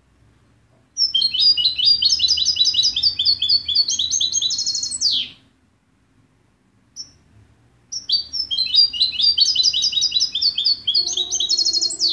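European goldfinch singing: two long phrases of rapid twittering notes, each climbing in pitch and ending in a fast trill and a falling note, with a short single call between them.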